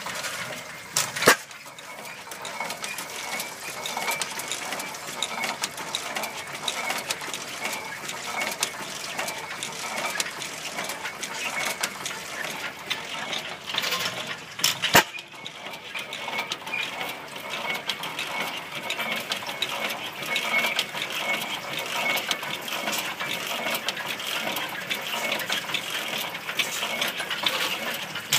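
15 hp International Harvester stationary gas engine running on its factory truck, its valve gear, governor and flywheels making a steady fast metallic clatter. Two sharp bangs stand out, about a second in and about halfway through.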